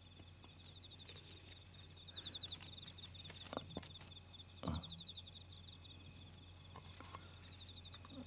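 Faint, steady chirping of crickets over a low hum, with a couple of soft knocks about halfway through.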